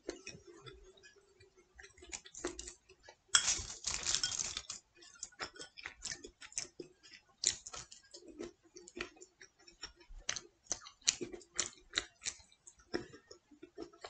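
Eating sounds: irregular wet mouth clicks and lip smacks as pizza and a spoonful of creamy dessert are chewed. A louder rustling burst comes about three and a half seconds in.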